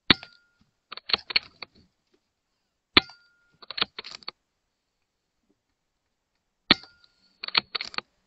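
Airmaks Krait L .22 PCP air rifle fired three times, about three seconds apart. Each shot is a sharp crack with a short ring after it, followed about a second later by a quick run of metallic clicks as the action is cycled to load the next pellet.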